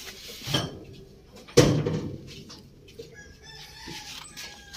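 A loud thump about a second and a half in, then a rooster crowing faintly in the background near the end.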